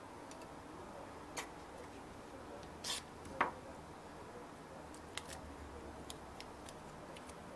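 Light clicks and ticks of hands working a laptop graphics card and fine wire into a BGA rework station's board holder. The sharpest click comes about three and a half seconds in, and faint ticks follow near the end, over a low steady hum.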